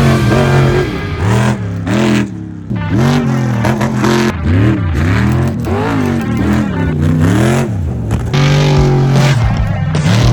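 Off-road race vehicle engines revving, the pitch rising and falling again and again as the throttle is worked, then holding steadier near the end. Rock music plays underneath.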